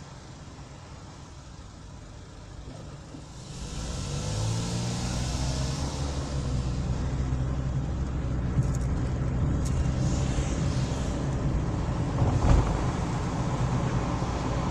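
Car engine and road noise heard from inside the cabin. The car idles quietly at a stop, then a little under four seconds in the engine rises in pitch as it pulls away and accelerates, settling into a steady drive with one brief thump about twelve seconds in.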